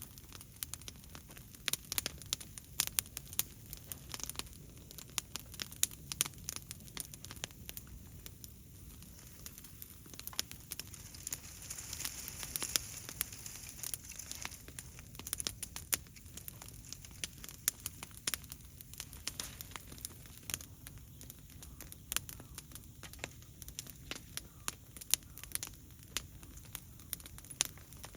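Open fire of fallen leaves and dead branches crackling, with irregular sharp pops and snaps; a hiss swells briefly about halfway through.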